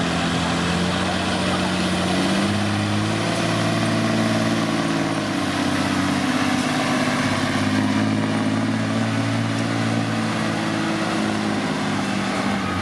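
Heavy pulling vehicle's engine running under load on the track. Its pitch steps up and down several times.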